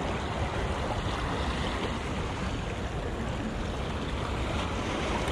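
Ocean surf washing steadily at a rock jetty, mixed with wind rumbling on the microphone.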